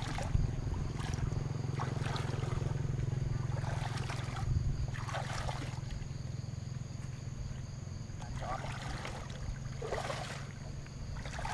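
Legs wading through shallow pond water: irregular sloshing splashes as each step pushes through, over a steady low rumble.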